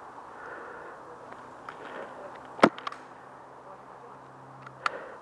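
Airsoft gas pistol fired: one loud sharp crack about halfway through with a few lighter clicks right after it, then a second, quieter crack near the end.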